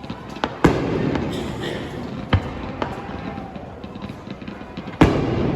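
Aerial fireworks bursting: a loud boom under a second in, a sharp crack about two seconds later, and another loud boom near the end, with scattered smaller pops between.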